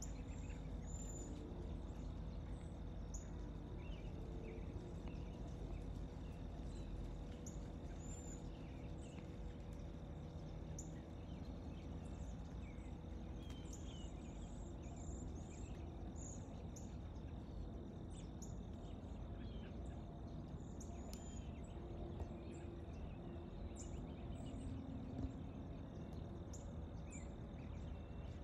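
Quiet woodland-edge ambience: small birds giving short, scattered chirps and whistled notes over a steady low background hiss. A single faint click sounds near the end.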